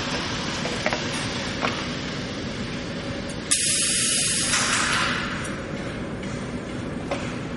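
A short blast of compressed air hissing about three and a half seconds in, lasting about a second and then fading, from the pneumatic system of a two-head UPVC window welding machine, over steady workshop machine noise. A couple of faint clicks come before it.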